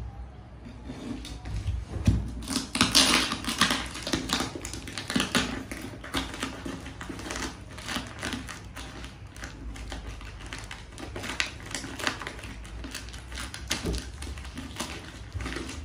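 A cardboard parcel being opened by hand: packing tape cut with a utility knife and torn, with plastic packing crinkling, a dense run of clicks and crackles that is busiest a few seconds in.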